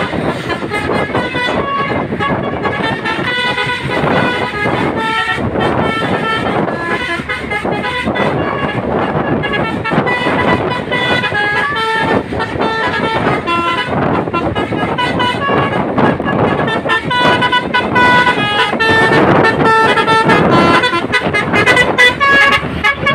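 A truck's telolet horn, a multi-tone musical horn, playing short runs of changing notes over and over, with traffic noise underneath.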